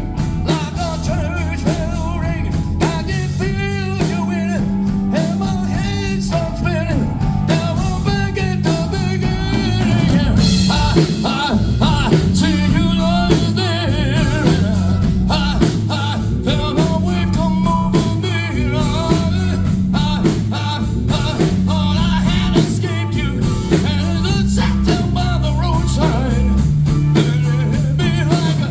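A rock and roll song: a lead voice singing over a band with a walking bass line and drums.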